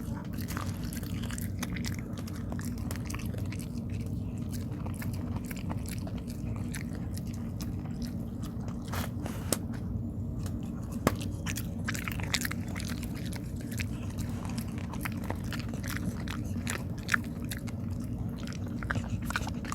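A dog chewing rice cake (tteok): irregular chewing clicks and smacks, a few of them louder, over a steady low hum.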